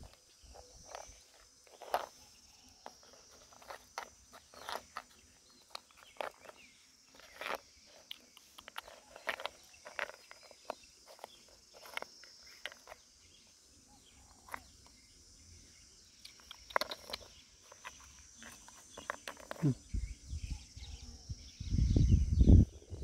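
Scattered clicks and knocks at an uneven pace over a faint, steady high hiss, with a louder low rumble in the last few seconds.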